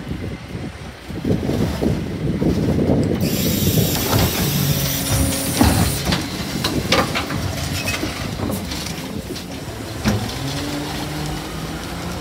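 Bucher rear-loader garbage truck running its hydraulic bin lifter and compactor. The engine revs up to drive the hydraulics about a second in, and a hiss joins soon after. Clanks and rattling rubbish follow as the bin is tipped into the hopper, and the engine tone rises near the end.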